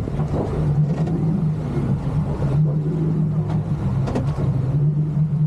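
A boat engine running steadily at speed, a constant drone with a rushing noise of wind and water over it.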